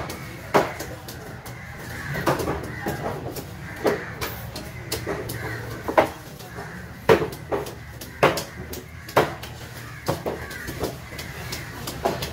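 Large knife scraping the scales off a snapper on a wooden cutting board: sharp rasping strokes, roughly one a second.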